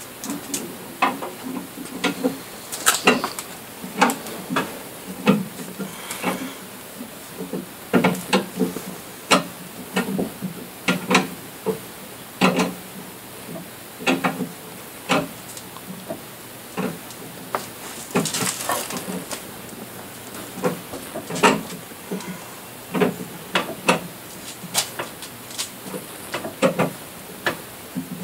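Irregular metal clicks and clanks, one or two a second, of a lug wrench and lug nuts being handled at a car wheel during a tire change, with a short scrape about two-thirds of the way through.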